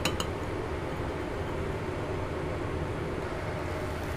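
Steady low background rumble, with a few light clinks of a metal spoon against a ceramic bowl right at the start.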